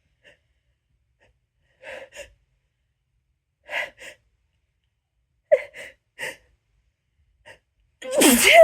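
Hitchy build-up to a sneeze: several short catching in-breaths, mostly in pairs, a second or two apart, then one loud, powerful sneeze with a voiced cry near the end.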